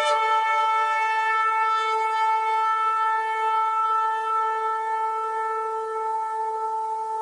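Ram's horn shofar sounding one long, steady held blast at a constant pitch.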